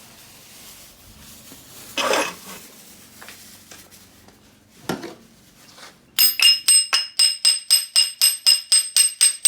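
A couple of short knocks or scrapes, then, from a little past halfway, rapid metallic tapping at about four strikes a second, each strike ringing with the same high metallic tone.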